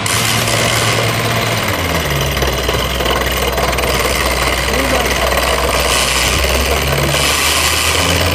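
Crawler-mounted rock drill rig drilling a blast hole in rock: its engine runs steadily under the rapid hammering of the drill and a hiss of noise, the engine note dropping slightly about two seconds in.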